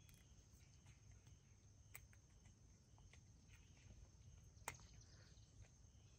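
Near silence, with a faint steady high trill of insects such as crickets. A few faint clicks sound over it, the sharpest about three-quarters of the way through.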